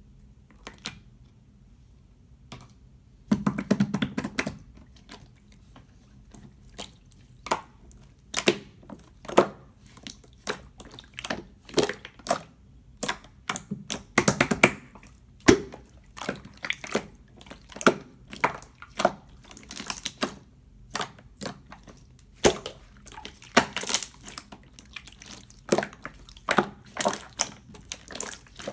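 Clear slime being worked by hand, giving a run of sticky, wet clicks and pops, a few a second, with longer squishy stretches about three to four seconds in and again around fourteen seconds.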